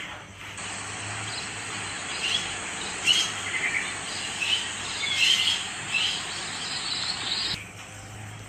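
Birds chirping in short calls, repeated every second or so, over a steady hiss that cuts off abruptly near the end.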